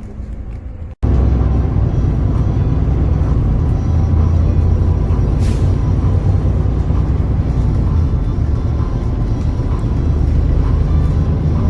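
City bus running, heard from inside the cabin: a steady low engine and road rumble. About a second in the sound cuts out for an instant, then comes back louder.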